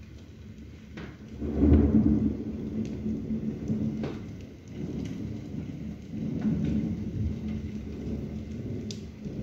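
Thunder rumbling low and long, loudest about a second and a half in, then fading and swelling again around six and a half seconds, over steady rain.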